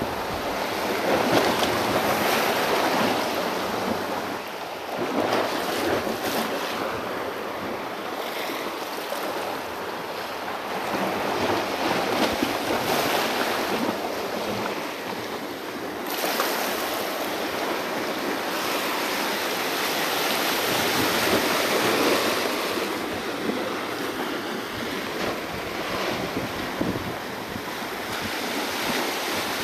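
Small waves washing and breaking over a rock shelf, the surges swelling and easing every few seconds, with wind buffeting the microphone.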